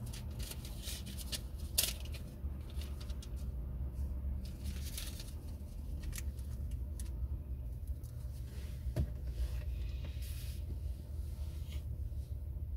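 Steady low rumble inside the cabin of a car idling at a standstill, with scattered light clicks and scrapes at irregular moments.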